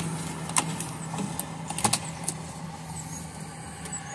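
Key fob being pushed into the dash slot of a BMW X5 and the ignition switching on, with a few sharp clicks, the loudest about two seconds in, over a low steady hum.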